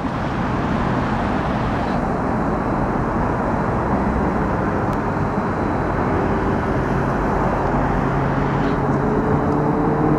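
Steady city road traffic noise, with a vehicle engine hum that rises slowly in pitch from about six seconds in.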